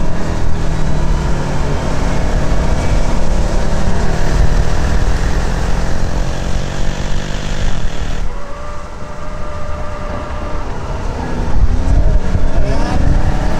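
Supercharged 6.2-litre V8 of a 2019 Jeep Trackhawk under hard acceleration on track, its note climbing steadily. About eight seconds in it drops away suddenly, then builds again near the end with the pitch rising.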